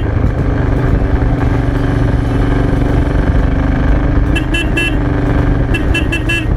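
Motorcycle engine running steadily under way, with wind rush over the bike. Two bursts of short, quick high beeps cut in, about four and six seconds in.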